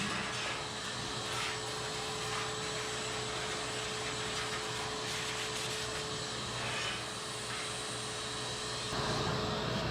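Shop vac running with a steady whine, its hose sucking dust and gunk off a refrigerator's condenser coils. A few brief scrapes, and the sound turns fuller and louder near the end.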